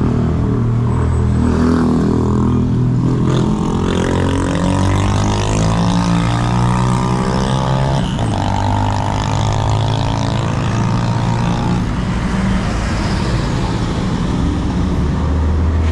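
Car engine accelerating through the gears over steady low road rumble. Its pitch rises, drops sharply about halfway through as it changes gear, then climbs again before settling.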